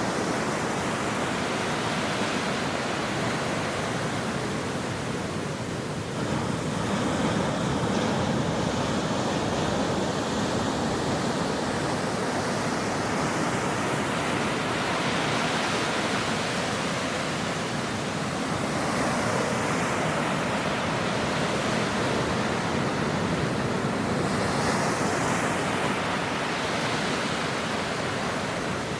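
Ocean waves breaking on a shore, a continuous rushing surf that swells and eases slowly every several seconds.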